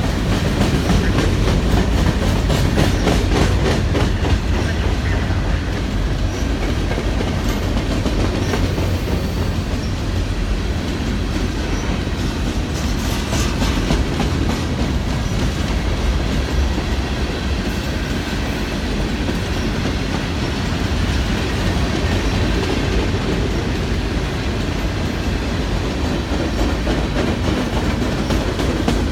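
CN freight train's cars rolling past with a steady low rumble, wheels clicking in quick succession over rail joints.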